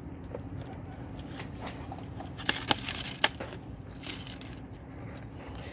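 Knife work on a freshly caught fish: a few short crunching clicks clustered around the middle, over a steady low hum.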